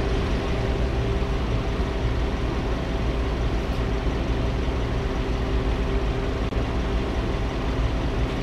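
2019 Hyundai Sonata's engine idling steadily.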